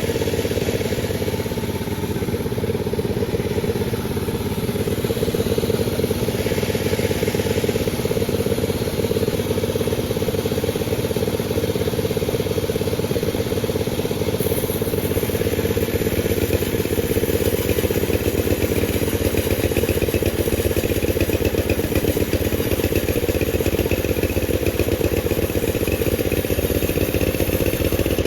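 Panda36 chainsaw running steadily. About halfway through, a high hiss joins the engine sound.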